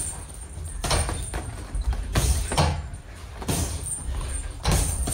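Padded boxing gloves landing punches in sparring: about six irregular thuds, half a second to a second apart, over a steady low gym rumble.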